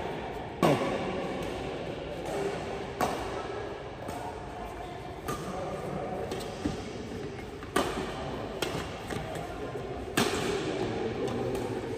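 Badminton rackets striking a shuttlecock during a doubles rally: sharp hits about every two to two and a half seconds, with fainter knocks in between.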